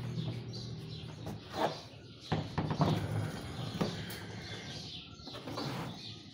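Scattered knocks and rubbing from hands handling a plastic amplified-speaker cabinet as its rear control panel is fitted back in place, with birds chirping in the background.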